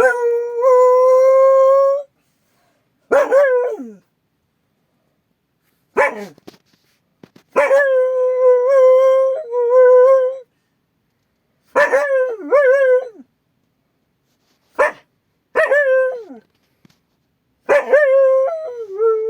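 An Akita dog gives a series of howling, baying alert calls at a strange noise outside. There are about eight calls with pauses between: some are held steady for one to two seconds, others are short and slide down in pitch.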